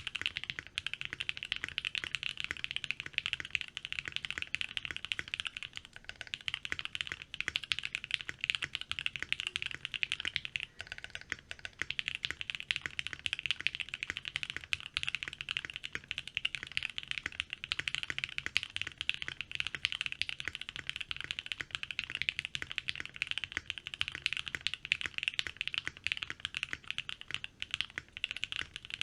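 Fast, continuous typing on a custom mechanical keyboard: a Think6.5 v2 case with lubed and filmed C3 Tangerine linear switches and ePBT keycaps, tape-modded and fitted with Poron switch pads, giving a creamy keystroke sound. The typing pauses briefly twice, about six and eleven seconds in.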